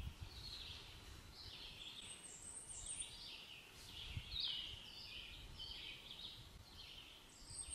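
Birds singing: a steady run of short, high, chirping phrases, one after another, with a faint low rumble underneath.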